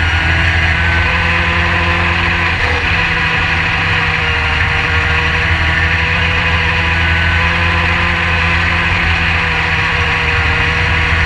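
SpeedSTR race car's engine running hard and steady under the driver, heard from the open cockpit on track, with a brief dip in the engine note about two and a half seconds in.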